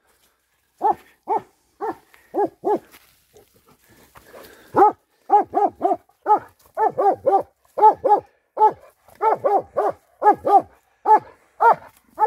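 Posavski hound crossbreed baying a wild boar: a long run of short, sharp barks, two to three a second and often in quick pairs, with a break of about two seconds a third of the way in.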